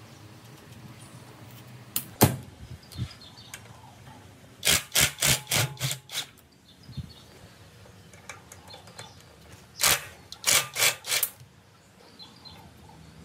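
Sharp knocks: a single one about two seconds in, a quick run of about six in the middle, and another run of about four near the end.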